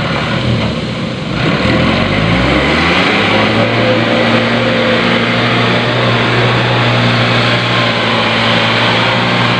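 Loaded dump truck's engine revving up about a second and a half in, then holding a steady high note under hard load as the truck pushes through deep mud.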